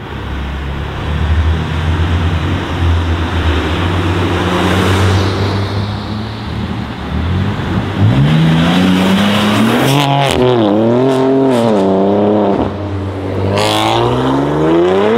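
Twin-turbo straight-six BMW M3 engines, one a G80 with an R44 performance exhaust, accelerating past loudly. The first half is a steady heavy rumble. Then the engine note climbs, rises and falls through several quick revs, and climbs again near the end, with a few sharp cracks among the revs.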